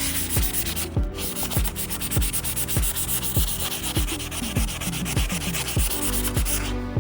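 Sandpaper scrubbing on a bike frame, a dense scratchy hiss that stops near the end, over background electronic music with a steady kick-drum beat.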